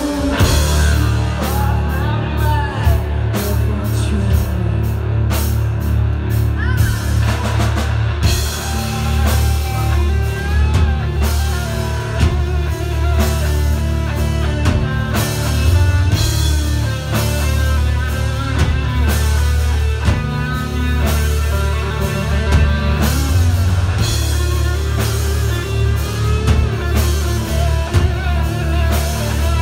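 Live rock band playing an instrumental passage. An electric guitar plays lead with bent notes over a steady rock drum beat and a heavy low end.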